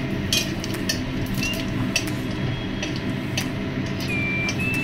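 Long metal spatula scraping and knocking against an aluminium kadai while stirring whole spices in hot oil: a few sharp clicks and short high-pitched scrapes over a steady low hum.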